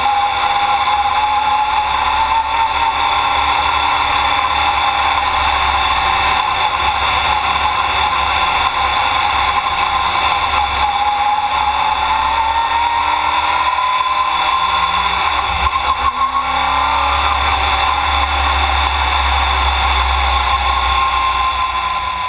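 USAR Pro Cup stock car's V8 engine at racing speed, heard from inside the cockpit, its pitch slowly rising and falling as the car laps the short oval.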